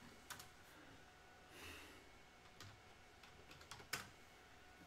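Faint computer keyboard keystrokes: a few scattered key presses while a terminal command is typed and entered, the loudest click near the end. A brief soft rush of noise comes about a third of the way in.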